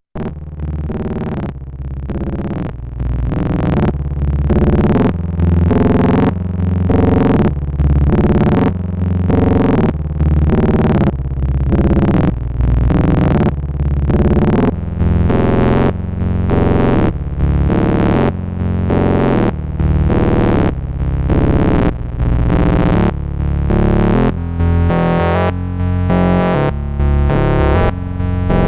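Analog synthesizer voice processed through two Noise Of Antimatter Subshaper modules in series. The first adds deep subharmonics, and the clocked second cuts it into a rhythmic clock-divider pattern of notes about once a second.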